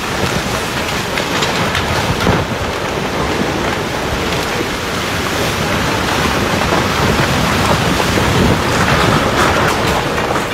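Landslide rockfall: a continuous rumbling roar of rock and earth sliding down a cut slope, with scattered knocks of falling stones. It grows louder toward the end as a larger mass of the slope collapses.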